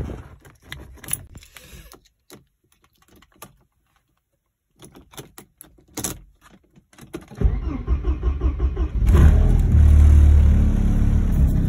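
Keys jangling and clicking in the ignition of a 1986 Porsche 944. About seven seconds in its 2.5-litre inline-four engine cranks over for a second or so, catches and settles into a steady idle, started cold in sub-freezing weather.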